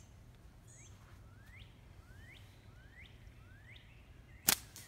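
A bird gives a string of short rising chirps, then a single sharp snap about four and a half seconds in as a slingshot with green flat rubber bands is shot.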